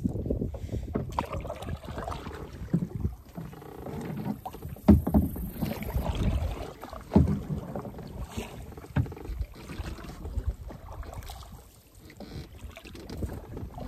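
Double-bladed kayak paddle dipping into the river stroke after stroke: irregular splashing and dripping water with a few sharper, louder thuds, the strongest about five and seven seconds in.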